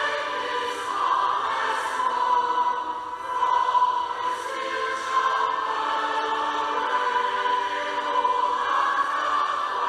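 A choir singing a hymn, voices in long held notes.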